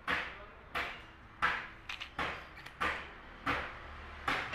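Footsteps walking at an even pace, about three steps every two seconds, each a short scuffing hit.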